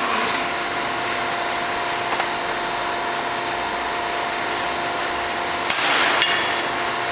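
Tube bending machine running steadily with a constant hum. Near the end comes a sharp click, then a short rushing noise and another click.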